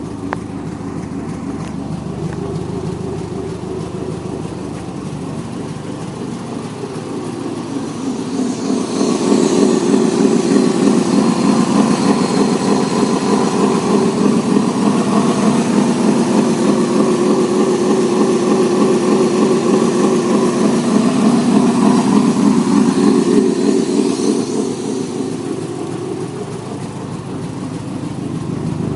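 1984 Range Rover's V8 petrol engine running steadily, having just been started for the first time in four years. It gets louder for about fifteen seconds in the middle, then settles back.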